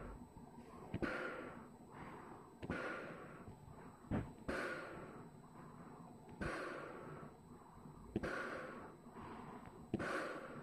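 Breathing in and out through a GP-5 Soviet rubber gas mask, about one breath every two seconds, each breath starting with a sharp click.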